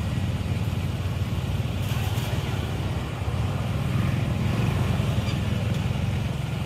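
A steady low rumble, and about two seconds in a brief splashing hiss as a weighted cast net lands flat on the water.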